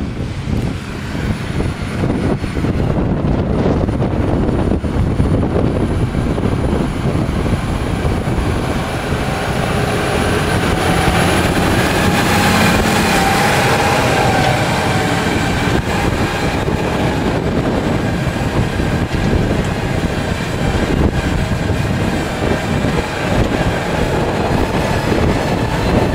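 Farm tractor engines running steadily under load as they pull tillage implements through the soil.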